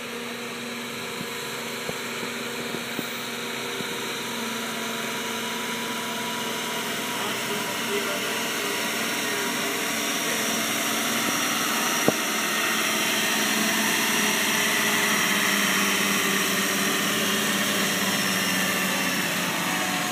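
International Harvester 1086 tractor's turbocharged six-cylinder diesel engine running hard under load as it pulls the sled, growing louder as it draws nearer, loudest about two-thirds of the way through. A single sharp crack sounds about twelve seconds in.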